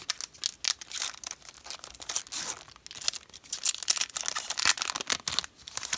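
Foil wrapper of a Pokémon trading-card booster pack crinkling and tearing as it is ripped open by hand, a dense, irregular run of crackles.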